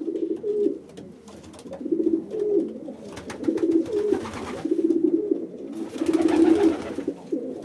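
Feral rock pigeons cooing: a run of low, throaty cooing phrases one after another, with faint clicks and rustles behind them.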